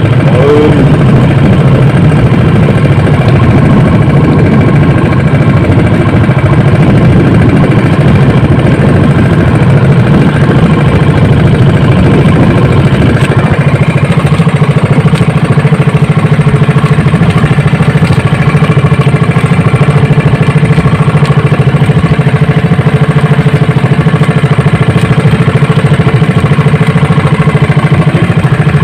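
Small outrigger fishing boat's engine running steadily, a loud, even drone.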